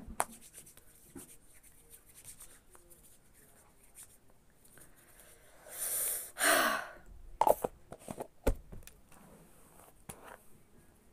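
Soft handling sounds of hands rubbing in hand cream. About six seconds in comes a louder rushing swish lasting about a second, then a few light knocks and a dull thump.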